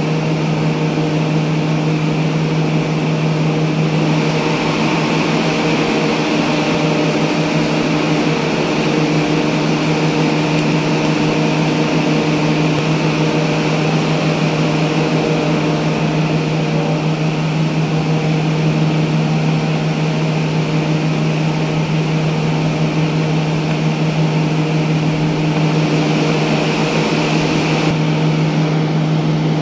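Steady machine hum from a motor running without change: one strong low tone with fainter overtones above it and a constant hiss.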